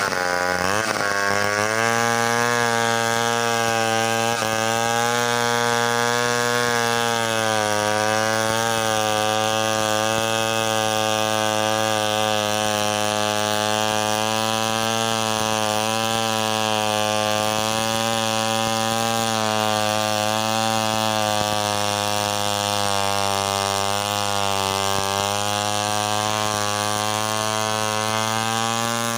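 Stihl 070 two-stroke chainsaw running at full throttle while ripping lengthwise along a coconut palm log. About a second in the engine pitch dips sharply as it bogs, then picks back up and holds steady under load, wavering slightly.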